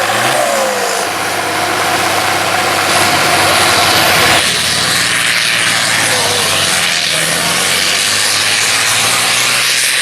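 Pulling farm tractor's engine running loud at high revs, its pitch rising in the first second, with a change in tone about four and a half seconds in.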